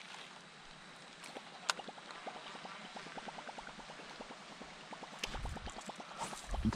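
A topwater musky lure being reeled back on a casting rod: a fast, even ticking, about six a second, with one sharp click early on and a low knock near the end.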